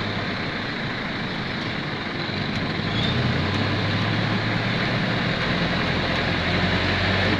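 Vehicle engine running steadily while driving at low speed, heard from aboard, with road noise; the engine hum grows a little louder about three seconds in.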